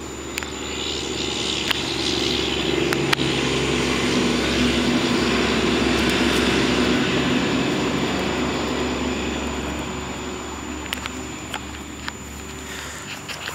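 Engine drone of a propeller aircraft passing overhead. It swells over several seconds, is loudest about midway, then slowly fades.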